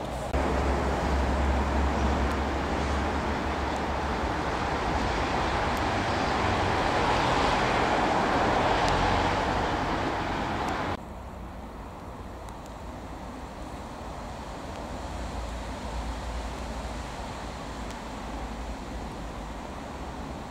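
Steady rushing outdoor background noise, louder in the first half, that drops suddenly to a quieter level about eleven seconds in.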